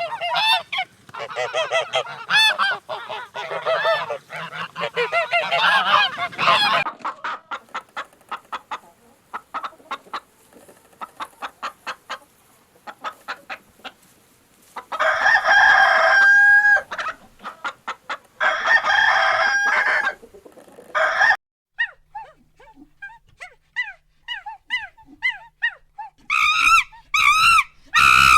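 Chickens and geese calling in a series of short clips: a dense run of calls, then rapid clucking, two long crows from a rooster, faint cheeping, and honking near the end.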